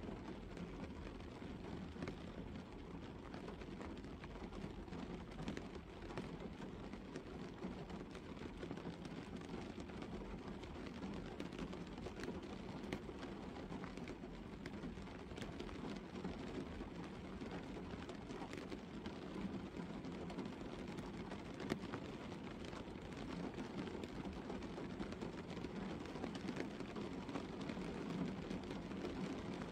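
Gentle rain falling on a car, heard from inside the cabin: a steady patter of drops on the roof, bonnet and windscreen, with many small single taps standing out.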